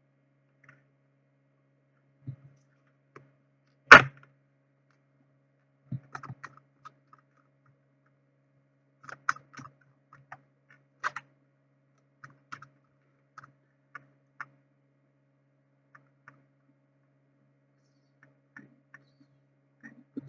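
Tarot cards being handled: scattered light clicks and taps, with one sharp knock about four seconds in, like a card or the deck set down on the table.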